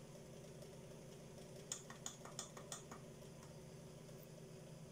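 A quick run of small sharp clicks, about eight in just over a second near the middle, over a faint steady hum: the side control buttons of a Changhong LED TV being pressed to step through the source menu.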